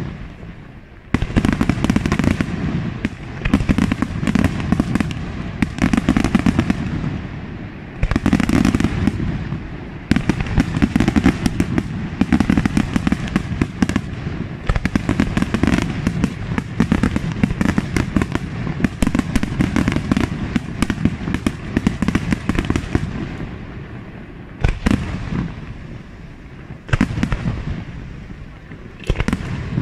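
Aerial fireworks display: shells bursting in close succession with dense crackling, an almost unbroken barrage. Heavy bursts start it off about a second in, and sharp single reports stand out near the end.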